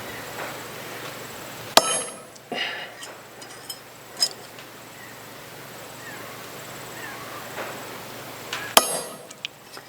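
Two sharp strikes of a club hammer on a cold chisel cutting through a metal spoon, each with a brief metallic ring, the first about two seconds in and the second near the end. A few lighter clinks fall between them.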